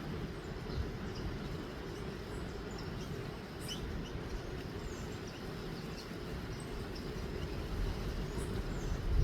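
Small birds giving scattered short, high chirps over a steady low rumble.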